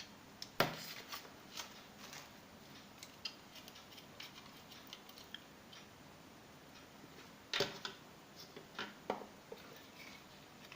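Hard plastic parts of a flexible phone holder being handled: scattered small clicks and knocks, with a sharper click about half a second in and another near eight seconds.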